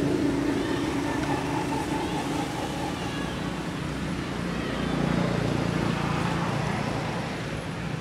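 Steady low hum of an engine running, with outdoor background noise.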